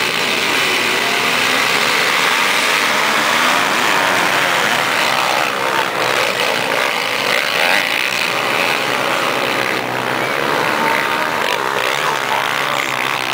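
Several motocross bikes racing together, their engines revving up and down in a loud, continuous mix.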